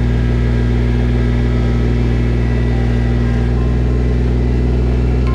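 Engine of a Kubota WP80D riding rice transplanter running steadily, heard from the driver's seat, with an even, unchanging pitch.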